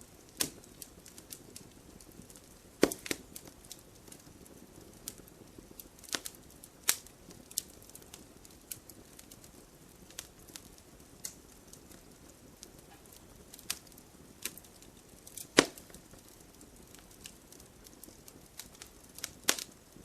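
Campfire wood crackling: scattered sharp pops and a few louder snaps over a soft, steady hiss of the burning fire.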